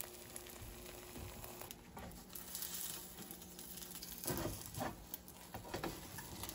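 Egg frying faintly in a nonstick pan, with a few spatula scrapes and knocks against the pan about four to five seconds in.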